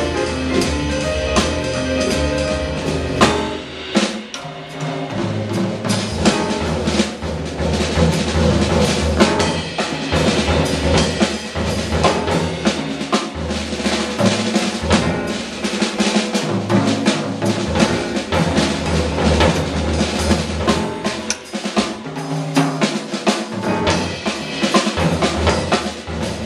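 Live jazz trio playing a blues, with the drum kit prominent: dense snare, bass drum and cymbal strokes over a walking electric bass guitar and grand piano. The bass line drops out for a few seconds at a time while the drums carry on.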